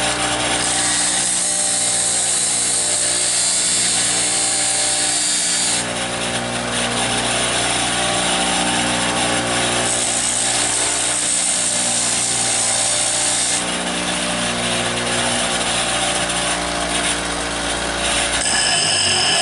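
Bench grinder running with a steady hum while a screwdriver tip is ground on the stone wheel, giving a high hissing grind in long passes: one of about five seconds near the start, another of about four seconds midway, and another near the end. The screwdriver end is being ground to a scalloped, reverse-curve tip.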